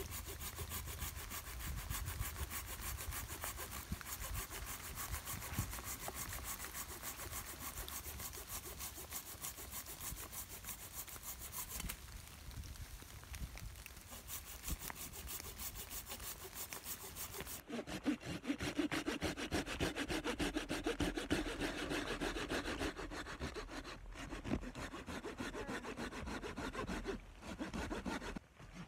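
Hand saw cutting through a dead maple branch with steady back-and-forth strokes. About two-thirds of the way through the strokes change in tone and grow a little louder.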